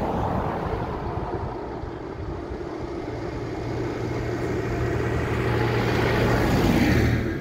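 A modern cab tractor's diesel engine drawing near with a steady low hum and growing tyre noise, loudest as it passes close by near the end, then falling away sharply. A car goes by at the start.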